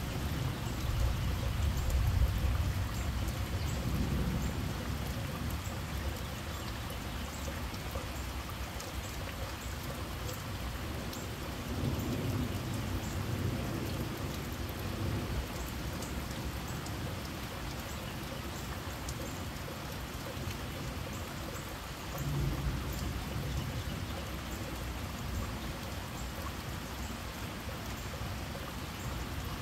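Steady heavy rain falling on garden foliage and lawn, with scattered close drips ticking. Low rumbles swell up three times: about two seconds in, near the middle, and about two-thirds of the way through.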